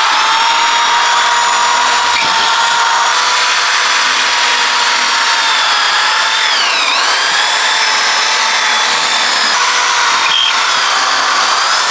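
Corded electric drill running steadily as its bit drills out the old rubber of a trailing arm bushing. The motor's whine dips in pitch briefly about seven seconds in, then recovers.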